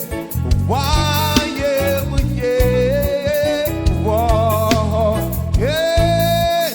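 Gospel praise song with a band: a singer carries a melody with vibrato over bass and drums, holding one long note near the end.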